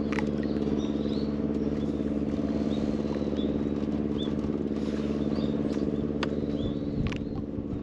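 Boat engine running steadily at one constant pitch, with a few faint short high chirps and occasional light knocks over it.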